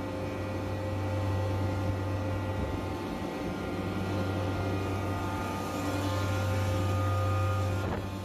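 York screw chiller with a variable-speed drive running: a steady low hum with several steady tones above it.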